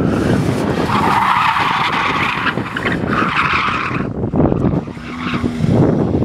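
Datsun 280ZX's tires squealing as it is thrown hard through the cones on poor tires: two long squeals, the first starting about a second in, and a short third one near the end, over the car's engine running beneath.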